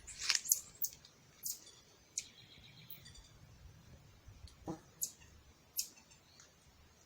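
Common marmosets giving short, sharp high-pitched chirps, about seven scattered irregularly, most of them in the first two seconds.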